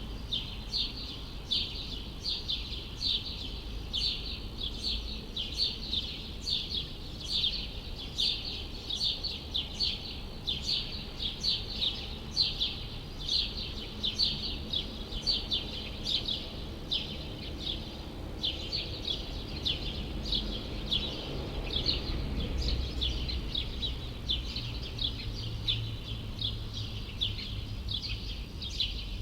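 Small birds chirping steadily, several short chirps a second, over a low hum of city traffic that swells for a few seconds near the end.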